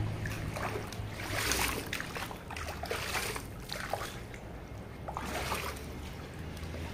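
Water trickling and splashing from an inflatable sprinkler splash pad onto wet paving, swelling in irregular surges every second or two.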